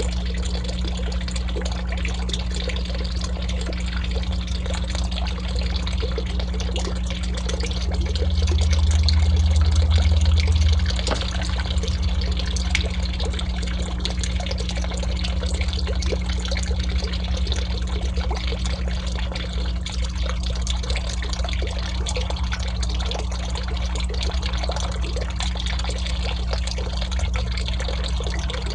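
Steady trickle of water pouring into a small garden pond, over a low, steady hum. A louder low rumble swells for about three seconds around a third of the way in.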